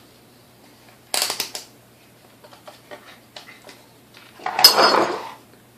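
Clatter and rustle of tools and objects being handled and set down on a workbench: a short burst about a second in and a louder, longer one near the end, with small clicks between.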